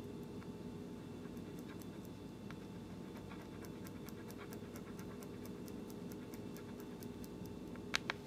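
Metal dotting tool clicking lightly against a plate while mixing loose glitter into clear nail polish, a quick run of small ticks about four a second, with two sharper clicks near the end, over a steady low hum.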